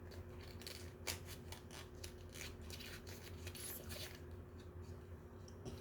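Small plastic toy packaging being handled and opened: a quick run of light clicks and rustles that thins out after about four seconds.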